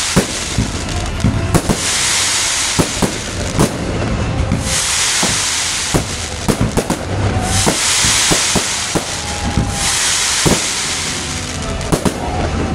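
Fireworks display: about five loud rushes of hissing as ground-fired fountains spray sparks upward, each lasting a couple of seconds, with many sharp bangs and crackles throughout.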